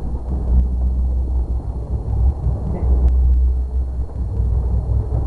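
Boat motor running steadily at trolling speed, a low rumble mixed with wind buffeting the microphone.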